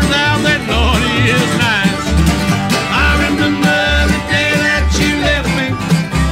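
Bluegrass-style background music with banjo and guitar over a steady bass beat.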